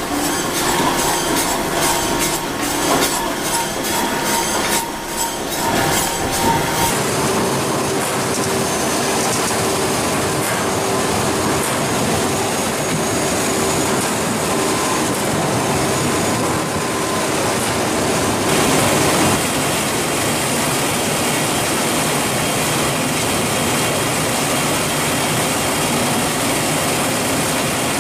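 Food-processing plant machinery running: rapid metallic clanking and squealing for the first several seconds, then a steady mechanical whir with a faint humming tone.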